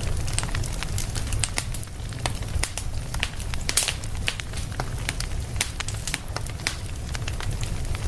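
Fire burning: a steady low rumble of flames with many irregular sharp crackles and pops.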